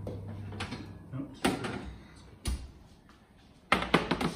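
Metal baking sheet of pulla buns being slid out of an oven on its rack. A few sharp metallic knocks, then a quick run of clattering near the end.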